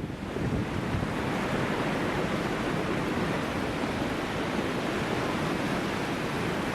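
Strong wind blowing steadily, with wind rumble on the microphone.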